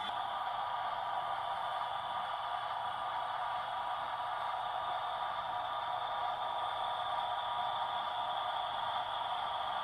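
HO scale model train running through a switching move, a steady whirring hum from its motor and wheels on the track, unchanging throughout.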